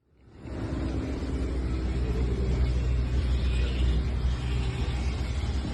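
Fishing boat's engine running steadily at idle, a low rumble with a steady hum, fading in about half a second in.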